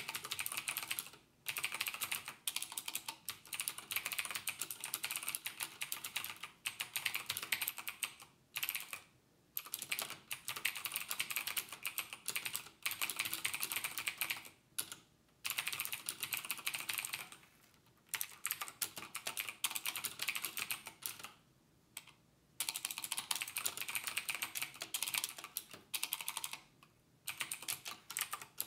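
Typing on a computer keyboard: quick runs of key clicks broken by short pauses every few seconds.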